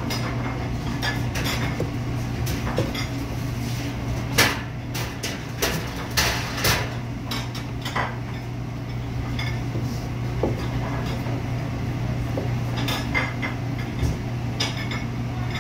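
Commercial kitchen clatter: knife strokes on a cutting board while pork loin is sliced, with scattered clinks of dishes and utensils, loudest about four to seven seconds in, over a steady low hum.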